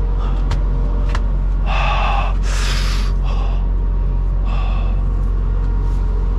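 Semi truck's diesel engine idling steadily, with a few short hissing, scraping noises over it in the middle.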